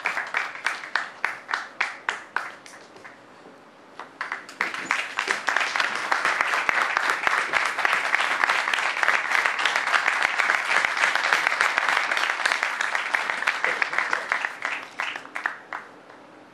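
Applause: a few evenly spaced hand claps that thin out. About four seconds in, a full round of audience applause builds, holds, and dies away into a few last claps near the end.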